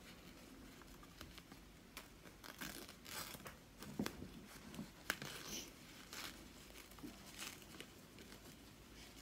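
Packaging being pulled off a doll by hand: faint, irregular crinkling and tearing of wrapping material, with a few sharp clicks.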